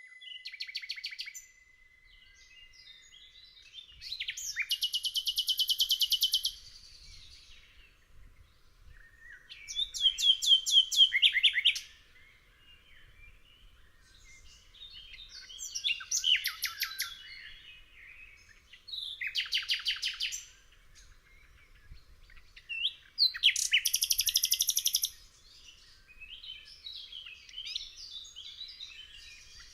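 A songbird singing: phrases of rapid repeated notes and trills, each two to three seconds long, broken by pauses of a few seconds.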